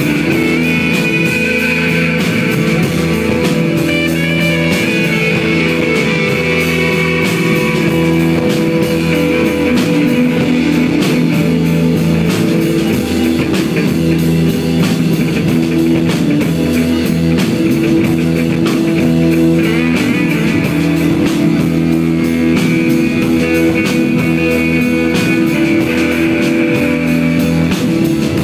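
Loud live psychedelic rock band: an electric guitar drones on steady held notes over driving drums.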